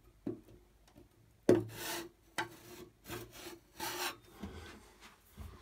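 Metal trowel blade scraping across a plasterboard ceiling and the rim of a downlight hole liner, setting the liner flush in wet filler. A run of separate scraping strokes, the longest and loudest about a second and a half in.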